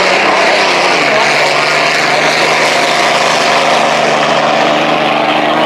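Unlimited racing hydroplane engine running on the river: a loud, steady drone whose pitch drops slightly about a second in.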